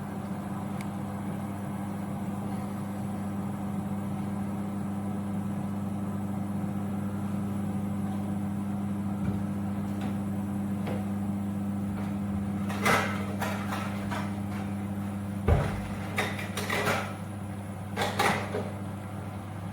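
Portable 2000 W induction hob running at full power: the steady hum of its cooling fan together with the induction buzz at the pot, as the water comes to the boil. In the second half, a few sharp clattering knocks.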